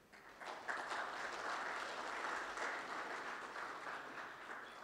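Audience applauding, the clapping swelling up within the first second and dying away near the end.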